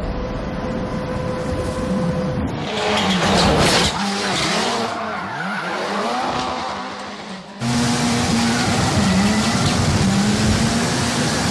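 Ford Fiesta rally car driven hard in a drift, its engine rising and falling in pitch with the throttle while the tyres skid and squeal on the tarmac. About two-thirds of the way through the sound cuts abruptly to a louder, steadier engine run.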